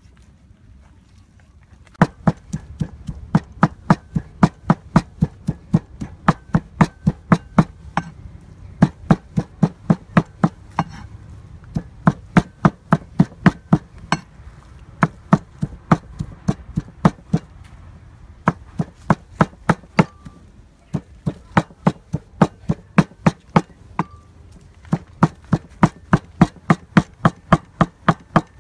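Cleaver chopping raw pork into mince on a wooden chopping block. The sharp strokes start about two seconds in and fall about three to four a second, in runs broken by brief pauses.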